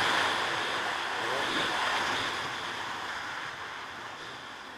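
Wind rushing over the microphone of a dirt bike being ridden fast along a trail, slowly easing off. The motorcycle engine revs faintly beneath it, rising and falling.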